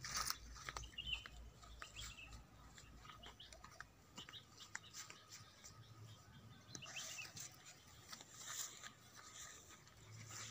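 Faint rustling and small crisp snaps of pak choi (sawi sendok) plants being cut and handled, with scattered light clicks. A bird chirps faintly about a second in.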